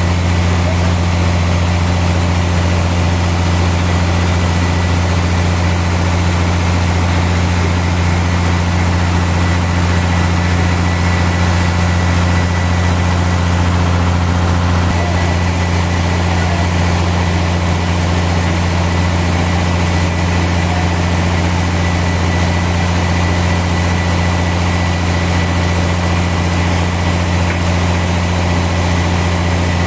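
Sawmill machinery running steadily: a deep, even engine drone that holds the same pitch throughout.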